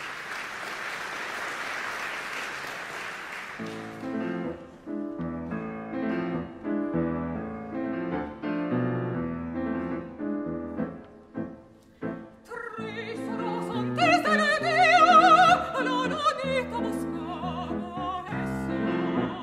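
A few seconds of even, hiss-like noise, then piano playing, with an operatic singer joining over the piano about twelve seconds in, the voice carrying a wide vibrato.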